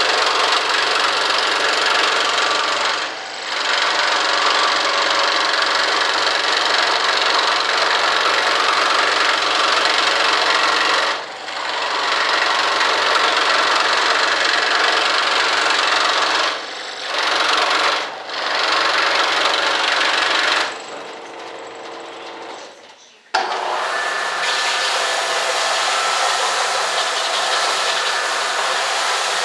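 Bench power sander running while a long wood strip is pressed against its sandpaper: a loud, steady grinding over the motor's hum that eases briefly four times as the wood comes off the paper. About two-thirds of the way through the sander is switched off and runs down, and a couple of seconds later another motor starts abruptly and runs steadily.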